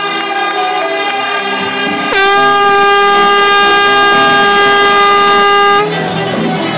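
Over live music, a loud horn-like tone cuts in about two seconds in, dipping sharply in pitch as it starts, then held steady on one note for about three and a half seconds before stopping abruptly.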